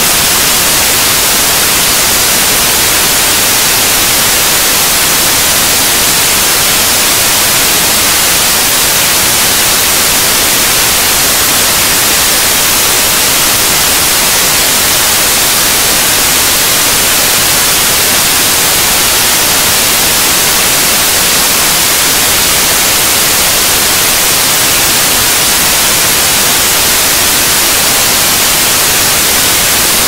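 Waterfall: a loud, steady hiss of falling water that stays even throughout, brightest in the high treble.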